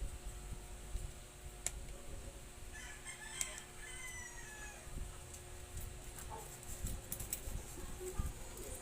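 A rooster crowing with other fowl calls in the background, with a few sharp clicks over a low rumble.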